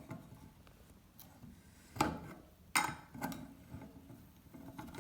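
Two sharp metal clicks a little under a second apart: a spanner being fitted to and working the nut that holds down a mixer tap's cartridge.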